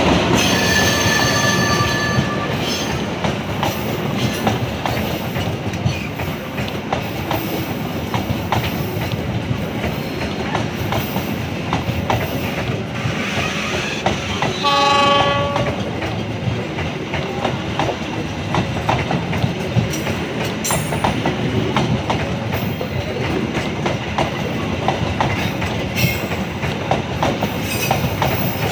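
Loco-hauled passenger train of stainless-steel coaches rolling past at close range, a steady rumble with wheels clattering over the rail joints. A short train horn blast sounds about halfway through.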